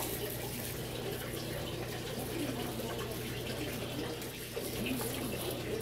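Water running steadily in an aquaponics system, with a low steady hum underneath.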